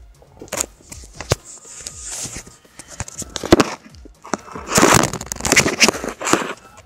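Handling noise from a camera being grabbed and moved: scattered knocks and clicks, then a stretch of rubbing and scraping against the microphone near the end.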